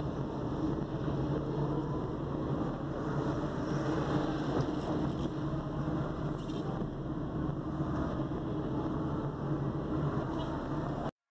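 A car's engine and road noise while driving, a steady low hum that cuts off abruptly just before the end.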